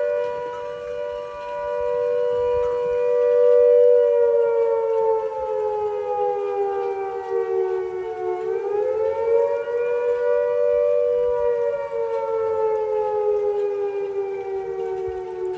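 Flood warning siren sounding: a low tone that slowly falls in pitch, rises quickly about eight seconds in, then slowly falls again. It signals a flood risk in the valley.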